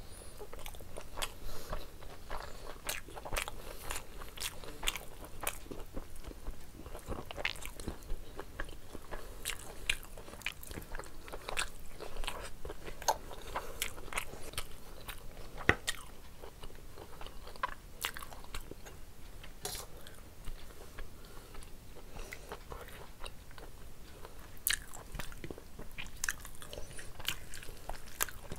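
Close, wet chewing of rice and curry: irregular mouth clicks and smacks, along with fingers mixing rice and curry on a plate. One sharper click stands out about halfway through.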